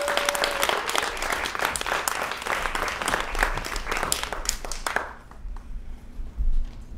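Audience applauding, many hands clapping, dying away about five seconds in.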